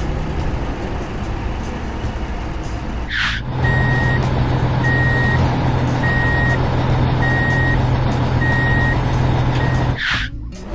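Heavy truck's reversing alarm beeping steadily, about one beep every 1.2 seconds, over its running engine. A short hiss comes just before the beeping starts and again as it stops.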